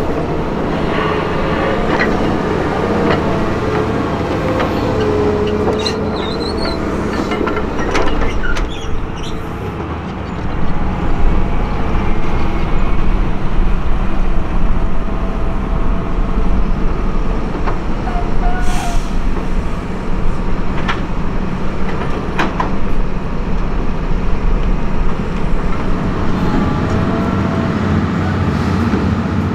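Heavy diesel earthmoving machinery running: chiefly a Hitachi Zaxis hydraulic excavator's engine and hydraulics working as it digs and loads, with a few sharp knocks from the bucket and spoil. The rumble grows louder about ten seconds in.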